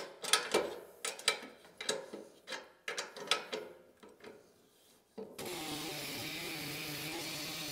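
Metal clicks and knocks as the chainsaw mill's bracket is set for the next cut. About five seconds in, a chainsaw mill starts sawing through a Douglas fir burl, running steadily under load.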